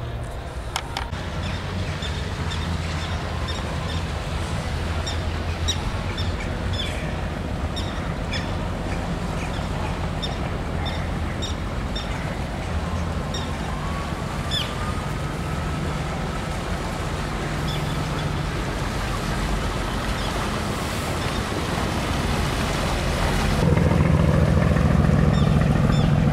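Boat engine running with a steady low hum over water wash, with short high bird chirps scattered through the first half. The engine grows clearly louder about 23 seconds in.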